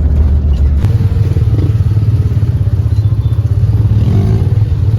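A motor vehicle's engine running close and loud, its low, pulsing drone stepping up in pitch about a second in and then holding steady.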